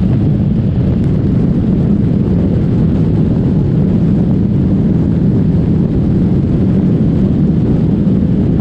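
Wind rushing over the microphone of a Kawasaki Vulcan 1700 Vaquero at highway speed, a loud, steady rumble with the engine running underneath.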